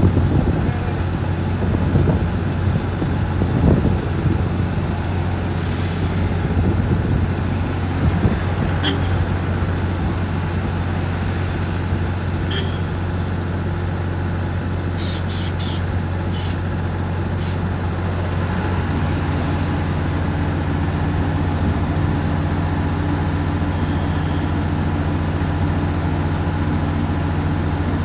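Asphalt distributor truck running steadily with a low, even hum; about two-thirds of the way in, a second, higher steady hum joins it. A few light clicks come about halfway through.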